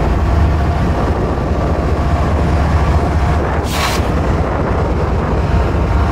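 Diesel-electric freight locomotive pulling slowly past at close range, its engine running with a heavy, deep rumble. A short hiss cuts in about halfway through.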